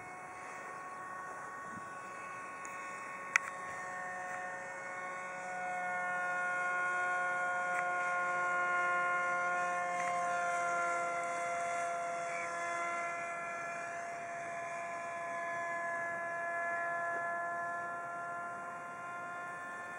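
Electric motor of a foam Depron RC F-22 Raptor model jet whining in flight, its pitch drifting slowly and getting louder in the middle as it passes closer. A single sharp click sounds about three seconds in.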